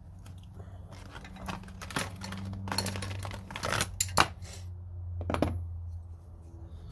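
A low-profile ratchet and its sockets being handled: irregular small metal clicks and clinks, with a sharper knock about four seconds in.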